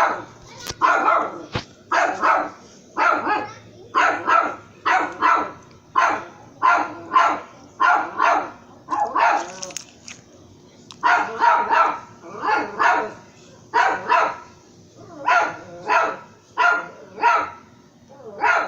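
A dog barking over and over, about one to two barks a second, with a pause of about a second near the middle.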